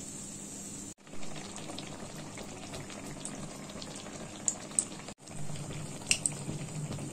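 Malpua batter deep-frying in hot refined oil in a wok: a steady sizzling and bubbling with small crackles. The sound cuts out abruptly twice, about a second in and about five seconds in, and a few sharper crackles stand out in the second half.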